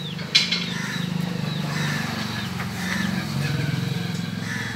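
An engine idling steadily with a fast, even pulse, and a single sharp click about half a second in.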